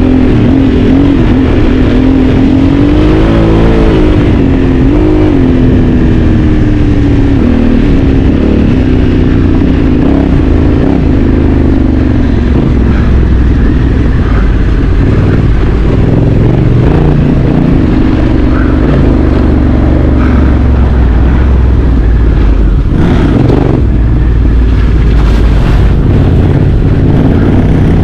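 Honda Africa Twin CRF1100's parallel-twin engine running while ridden off-road. Its revs rise and fall a few seconds in, then it settles into a steadier low rumble.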